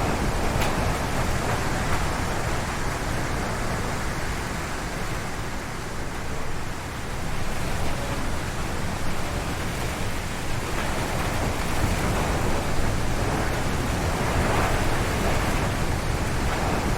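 Strong wind gusting through forest trees: a loud, steady rush that eases a little around the middle of the stretch and then builds again.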